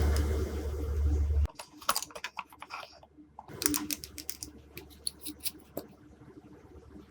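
Glossy slime being pressed and stirred, giving quick, irregular clicking pops, after a loud rubbing noise with a low hum that stops about a second and a half in.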